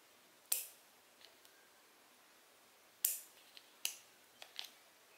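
A handful of sharp clicks and snaps from the small parts of a spinning fishing reel being handled during an anti-reverse repair. The loudest snaps come about half a second in and at about three seconds, with smaller clicks after.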